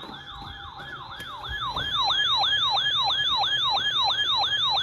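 Electronic siren sounding a fast yelp, its pitch sweeping up and down about three times a second, growing much louder about two seconds in.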